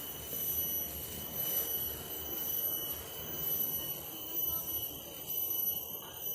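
Plastic trash bag rustling and crinkling as it is handled and torn open for the arm holes, under a steady high-pitched whine.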